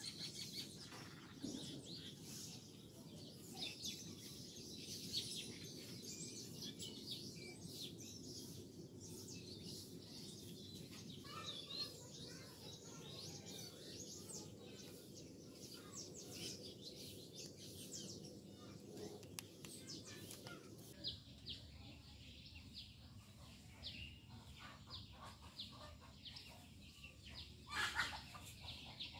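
Faint outdoor birdsong: many short, high chirps from small birds over a low, steady background haze. The background shifts about two-thirds of the way through, and a louder call stands out near the end.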